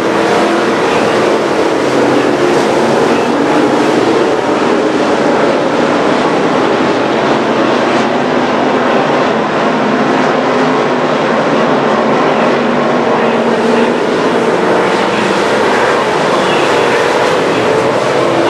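Street stock race cars running together at racing speed, a loud, unbroken engine drone whose pitch wavers as the cars come and go.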